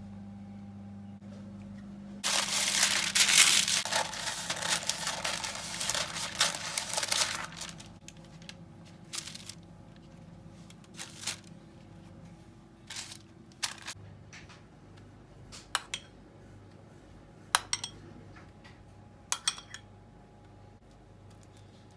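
Objects being handled: a low hum, then about five seconds of loud, dense rustling, followed by scattered light knocks and clicks as things are set down.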